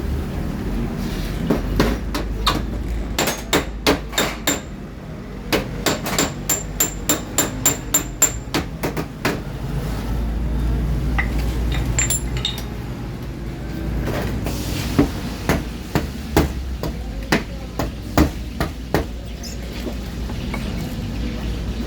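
Hammer tapping on a car's sheet-metal fender to work out a dent. A quick run of light blows gives way to slower single strikes, over a steady low hum.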